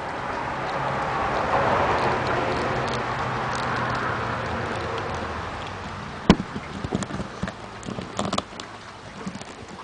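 Hands handling a plastic action figure and its toy rifle while fitting the gun on: a rustling, scraping noise for about five seconds, then a run of small sharp plastic clicks and taps from about six seconds in, the sharpest click first.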